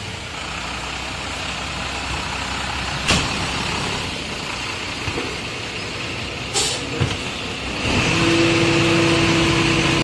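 Rear-loading garbage truck running at the kerb, with a couple of sharp knocks about six and a half seconds in as a wheelie bin is handled at its rear. A louder steady whine sets in about eight seconds in.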